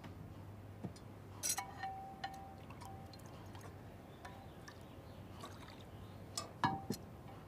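Faint clinks of tableware against ceramic dishes: a few light knocks, two of them ringing on briefly, about a second and a half in and again near the end.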